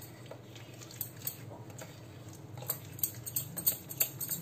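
Spoon stirring a thick cocoa, sugar and butter paste in a small glass bowl: faint scraping with scattered light clicks of the spoon against the glass, a few more in the second half.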